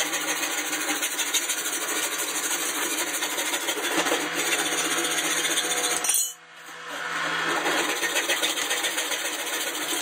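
Hand hacksaw sawing through a metal sliding-glass-door track channel, a run of quick back-and-forth rasping strokes. The sawing breaks off briefly about six seconds in, then starts again.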